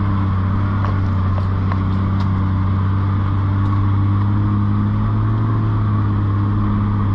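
Toyota LandCruiser 80 Series engine running at a low, steady drone, heard from inside the cabin as the vehicle crawls along a rutted dirt track, with a few faint clicks and rattles over the first few seconds.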